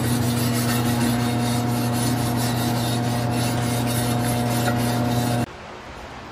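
A tyre changer's turntable motor runs with a steady hum, spinning an aluminium wheel while a wire brush is held against the rim's bead seat and scrubs it clean with a steady rasping scrape. The hum and scrape cut off together about five seconds in.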